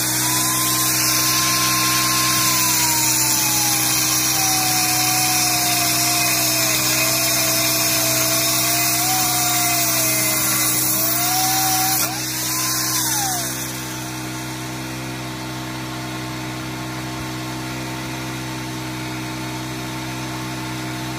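Corded angle grinder with a cut-off disc cutting through a steel angle-iron bed brace: a loud gritty whine whose pitch sags and wavers under load for about twelve seconds, then rises briefly as the disc comes free and winds down. A steady engine hum runs underneath throughout.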